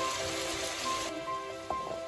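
Background music with soft melodic notes over the hiss of beef chunks sizzling in oil in a pot; the sizzling cuts off about a second in, leaving the music and a light tap near the end.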